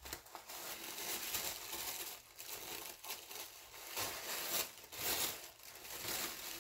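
Thin plastic bag crinkling and rustling in uneven swells as a journal is pulled out of it by hand.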